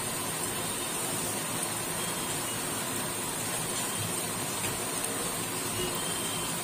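Urad dal medu vadas deep-frying in hot oil in a wok: a steady sizzle.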